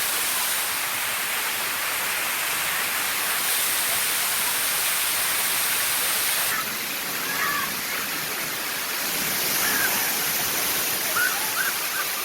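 Steady rush of falling and splashing water from a water park's play features, with faint voices in the background from about halfway through.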